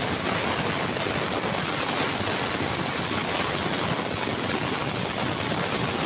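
Band sawmill running steadily, its blade sawing a red meranti timber.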